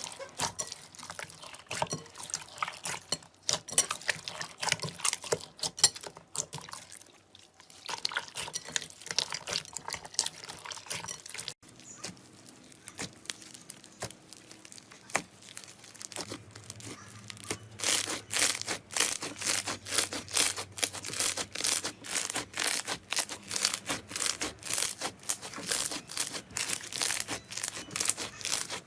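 Slime being squeezed, poked and stretched by hand, making wet clicks, squelches and crackly pops. About two-thirds of the way through, this gives way to a steady run of louder pops, a few a second.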